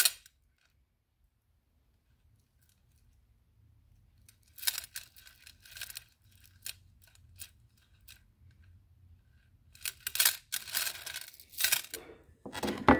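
Small seashells and shell necklaces being handled: scattered light clicks and rustles that start a few seconds in after near silence and get busier near the end.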